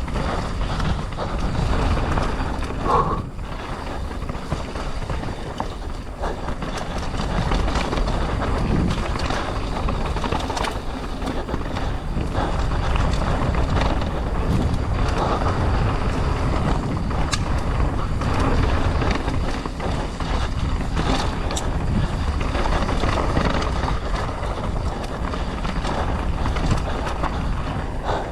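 Mountain bike descending a rough dirt trail at race speed: wind buffeting the microphone over a steady low rumble of tyres on dirt and rock, with scattered knocks and rattles from the bike. A short higher tone sounds about three seconds in.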